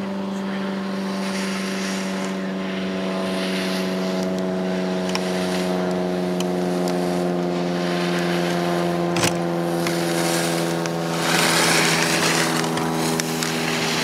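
A steady mechanical hum with several overtones from a motor or fan running without pause. Around eleven to thirteen seconds in there is a loud hiss of ski edges scraping the snow as a slalom skier carves past, and a single sharp knock comes a little after nine seconds.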